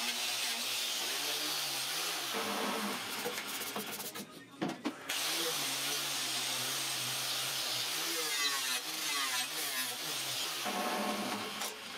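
Angle grinder with an abrasive disc grinding across the surface of a steel plate: a steady grinding hiss over the motor's hum, whose pitch dips and recovers as the disc is pressed and eased. It breaks off for about a second about four seconds in, then resumes.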